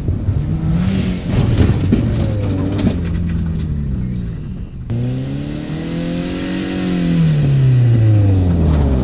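Toyota RAV4's engine revving hard, driven off-road, its pitch climbing and dipping with a rough, noisy stretch in the first few seconds. About five seconds in the sound breaks off abruptly, and the engine note then rises and falls away again.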